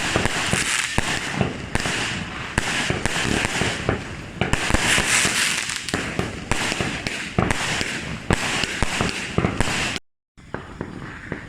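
Fireworks going off: a dense run of rapid cracks and pops over a steady hiss. It cuts off abruptly about ten seconds in, followed by quieter background sound.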